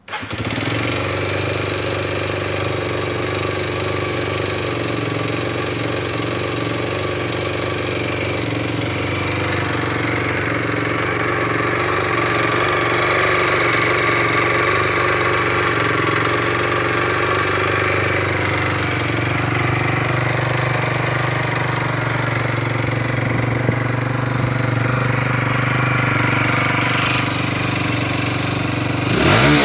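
Derbi Terra 125's 125 cc single-cylinder engine catching on the starter at the very beginning, then idling steadily.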